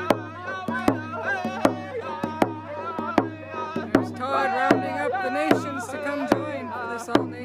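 Round dance song: a hand drum beaten with a beater in a steady beat, a strong stroke about every 0.8 seconds, under voices singing a high-pitched melody.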